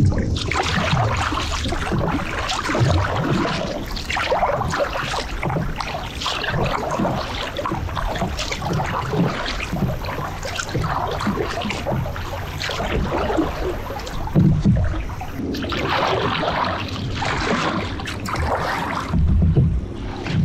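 Double-bladed kayak paddle strokes from a Tucktec folding kayak: the blades dipping and pulling through calm river water on alternating sides, each stroke a splash and swish with dripping water, about one a second.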